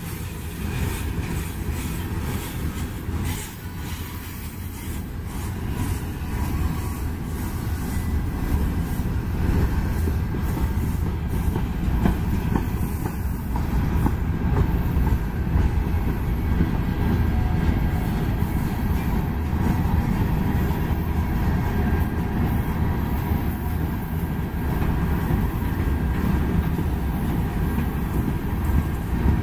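Freight train's tank cars and covered hopper cars rolling past: a steady rumble of steel wheels on rail with clicking over the rail joints, growing a little louder after about eight seconds.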